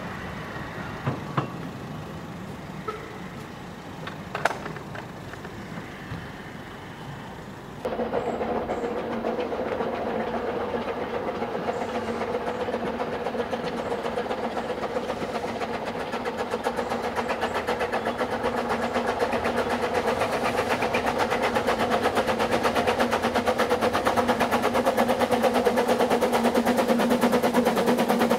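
For the first eight seconds, a narrow-gauge train rolling slowly past, with a few sharp knocks from the wheels. Then a Ffestiniog Railway narrow-gauge steam locomotive hauling vintage carriages, its exhaust chuffing in a fast, even beat that grows louder as it approaches.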